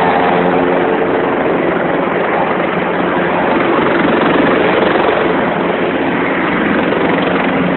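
Eurocopter EC725 Cougar military helicopter running close by, a loud steady drone of turbine and rotor with a constant hum under it.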